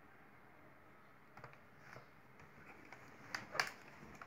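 Quiet room tone with two short clicks a little past three seconds in, about a quarter of a second apart: a computer mouse button being clicked.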